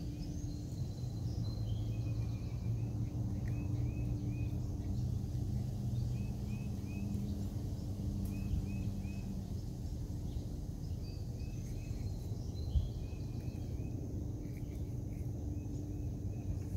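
Outdoor ambience: a low steady hum under a bird repeating short chirps, often in twos and threes, with a faint high insect drone. A single soft knock sounds about three-quarters of the way through.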